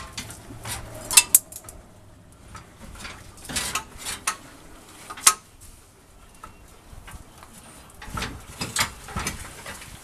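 Metal clinks and knocks of hand tools and parts under a truck as the fuel tank and its hoses are worked loose: scattered single strikes with quiet gaps between, and a short cluster near the end.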